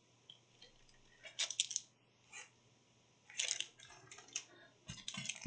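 Soft rustling and scraping of paper packaging as a large art print is drawn out and lifted, in a few short bursts about a second in and again from about three seconds.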